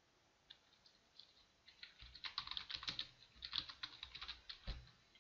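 Typing on a computer keyboard: a quick run of key clicks, sparse at first and dense in the second half, with one heavier click near the end.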